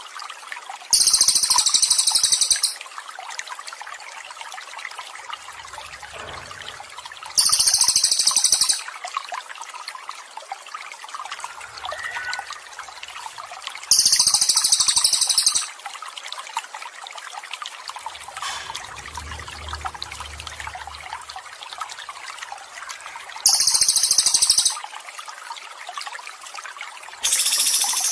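Water trickling steadily, with a bird's loud, very high, buzzy trill repeating about every six to nine seconds, five times, each lasting about a second and a half.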